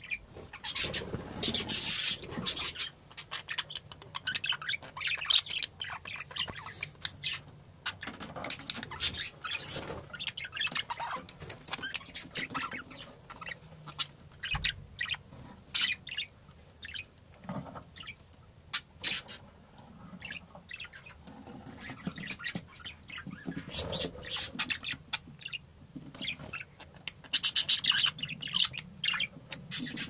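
Budgerigars chirping and chattering. Many short, high calls overlap, with louder bursts of calls near the start and again near the end.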